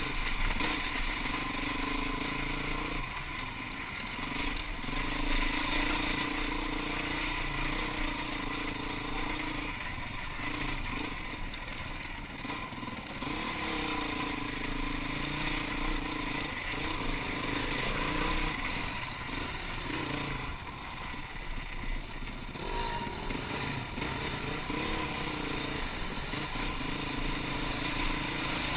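Enduro motorcycle engine running under the rider on a rough trail, its pitch rising and falling as the throttle is opened and eased, heard from a helmet-mounted camera.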